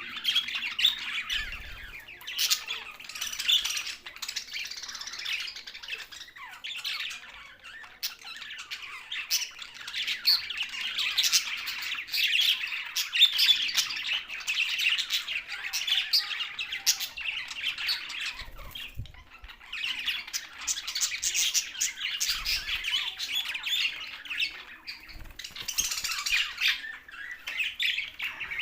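A flock of budgerigars chattering and squawking continuously, many birds calling over one another with rapid warbles and short harsh squawks.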